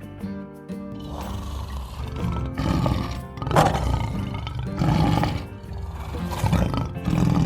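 A large animal's loud, rough calls, four or five in a row, over background music.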